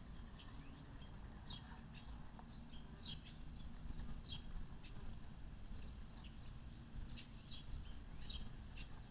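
Small birds chirping in short, scattered high notes, several a second, over a faint low steady rumble.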